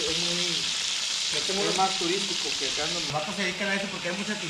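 Fish deep-frying in hot oil in a large pot over a propane burner: a steady sizzling hiss that eases a little about three seconds in.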